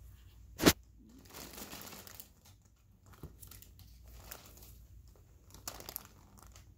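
Handling noise during minor skin surgery: a sharp knock just under a second in, then about a second of crinkling and rustling as gloved hands work gauze against the wound, with a few light clicks later on.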